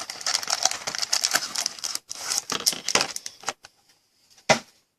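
Trading cards and their packaging being handled: a run of small clicks, crinkles and rustles, a short pause, then one sharp snap about four and a half seconds in.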